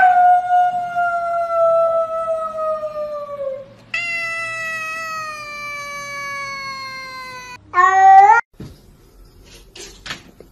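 Tabby cat meowing: two long drawn-out meows, each about three and a half seconds and sliding slowly down in pitch, then a short, loud one about eight seconds in.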